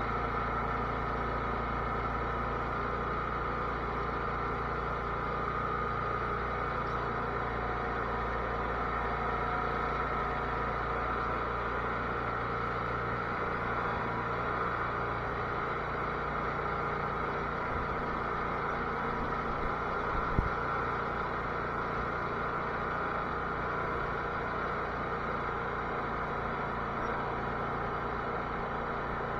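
Cub Cadet garden tractor's engine running steadily, with one sharp knock about twenty seconds in.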